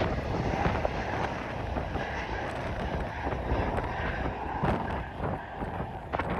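Wind buffeting the microphone, a steady low rumbling noise that eases slightly toward the end.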